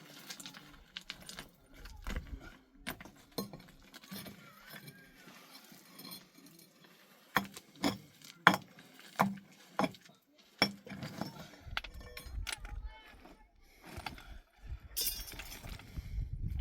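Sharp metallic clinks and knocks, with a run of about six loud strikes a little past the middle.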